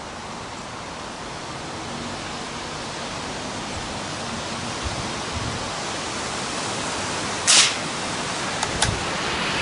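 Steady wind noise on the microphone. About seven and a half seconds in there is a single short, sharp report from a Marlin XT-22 bolt-action rifle firing CCI Quiet subsonic .22 LR ammunition, followed by a few light clicks.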